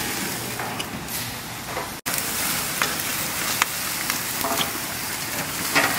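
New York steaks sizzling on a gas grill over flare-ups: a steady hiss with scattered crackles and pops of burning fat. The sound cuts out briefly about two seconds in.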